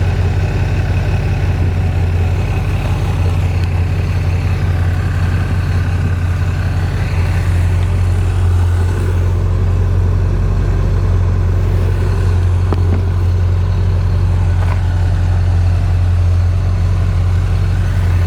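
GM 350 crate V8 of a 1979 Chevrolet Corvette idling steadily through its new exhaust, a deep, even note.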